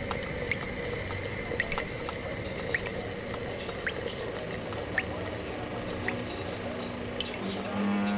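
Water hissing and bubbling in a kettle heating on a stove, with small scattered pops and drips. A steady low hum begins near the end.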